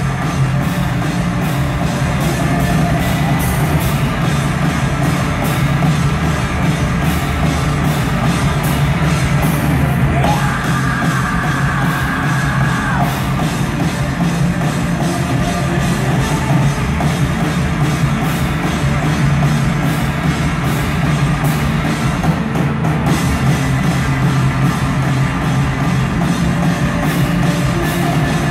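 Rock band playing loud heavy music live, with a dense wall of sound and drum kit hits throughout. A held high note sounds for a few seconds about a third of the way through.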